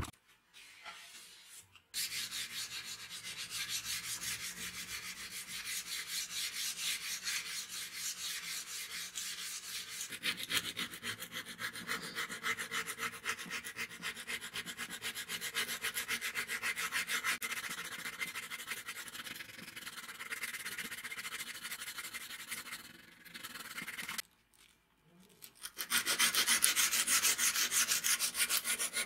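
Abrasive paper rubbed by hand back and forth along a metal sword blade in quick strokes, sanding rust off and polishing the antique blade. The rubbing starts about two seconds in, stops for a couple of seconds near the end, then comes back louder.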